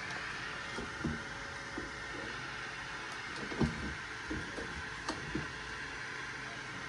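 3D printer running with a steady fan hiss, with a few soft knocks and clicks from handling. The loudest knock comes about three and a half seconds in.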